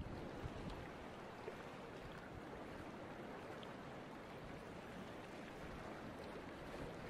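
Choppy sea water washing steadily, an even hiss with no single wave standing out.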